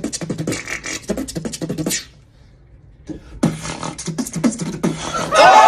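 Mouth beatboxing: a fast run of clicks, snares and kick-drum sounds for about two seconds, a short pause of about a second, then a second beatbox phrase of about a second and a half. Loud excited voices break in near the end.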